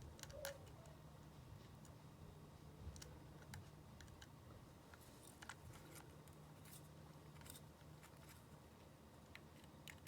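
Faint, scattered small clicks and taps of a small screwdriver and tools on the screws and cable brackets inside an iPhone 5, over a low steady hum.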